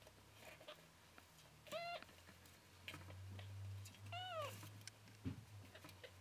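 A kitten about ten days old mewing twice, short high cries that rise and then fall in pitch, with a few faint clicks between them.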